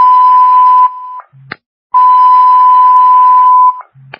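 Radio alert tone: two long, loud, steady beeps at the same pitch, each lasting under two seconds and each ending with a short click.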